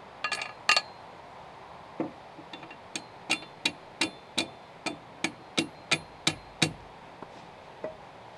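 Hand hammering: a few quick taps near the start, then a steady run of about eleven sharp blows, roughly three a second, each with a brief metallic ring.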